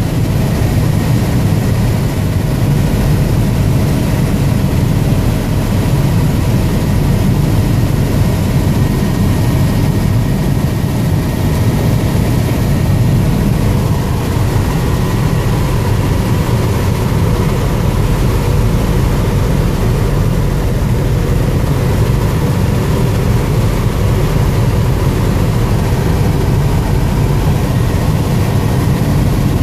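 Helicopter cabin noise in flight: the rotor and engine make a loud, steady low drone, with a faint steady whine above it.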